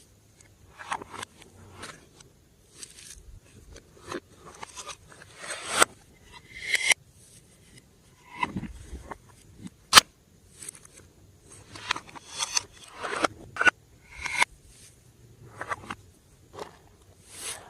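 Hands working a batch of glossy slime, making irregular sticky squelches, crackles and small pops, with a sharp click about ten seconds in.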